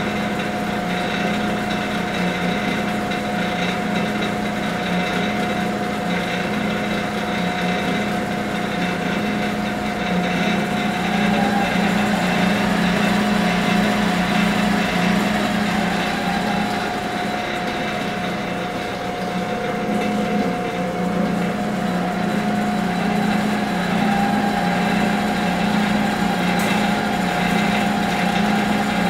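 Clausing 5913 metal lathe running on its single-phase motor: a steady mechanical hum with a whine over it, growing slightly louder about ten seconds in.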